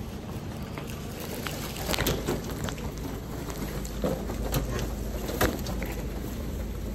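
Steady low hum of a car idling, with scattered light clicks and knocks of handling and movement.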